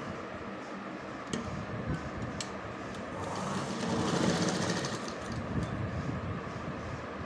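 Brother sewing machine running, stitching a folded bias strip along a neckline. It grows louder for a second or two around the middle, and there are two light clicks in the first half.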